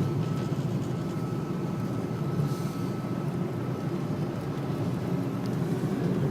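Car driving along the road, heard from inside the cabin: a steady road and engine rumble with a faint high hum over it.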